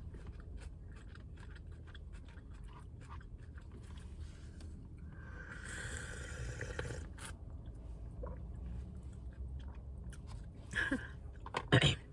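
A person chewing salad, with many small wet clicks and crunches. About halfway through comes a longer noisy rustle, and near the end a couple of louder short sounds.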